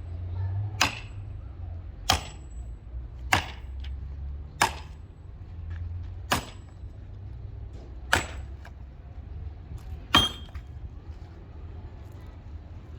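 A series of seven sharp knocks or impacts, one every one and a half to two seconds, several with a brief high ring after them, over a steady low hum.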